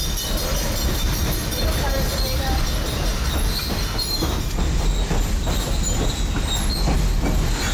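Running noise of a vintage passenger coach on a moving steam train, heard from inside: a steady rumble and rattle from the wheels and rails, with short high squeals in the second half.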